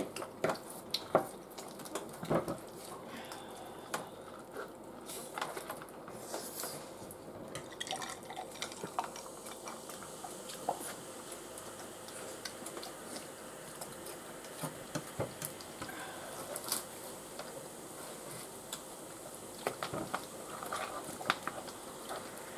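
Forks clicking and scraping on a metal baking tray while loaded nacho chips are picked up and eaten, in irregular short clicks with a cluster at the start and again near the end.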